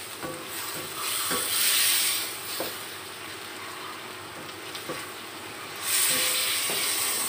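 Chicken pieces sizzling in sauce in a wok while a wooden spatula stirs and scrapes the pan, a stroke every second or so. The sizzle swells twice, about a second in and again near the end.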